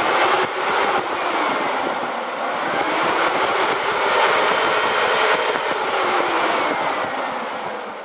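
Homemade 13-inch, 80-watt, 12-volt DC box fan running: a loud, steady rush of air through its wire grille, with a faint whine that wavers in pitch.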